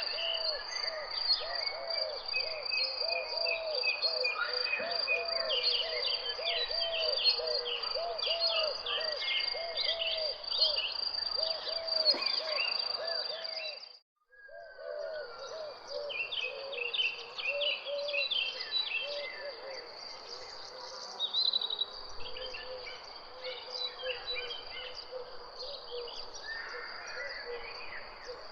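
Many birds chirping and calling over a steady high insect drone, with a lower call repeating over and over. The sound cuts out completely for a moment about halfway through, then resumes.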